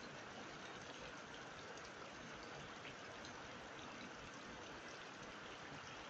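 Steady rain falling on wet ground and puddles: a continuous even hiss with tiny drop ticks scattered through it.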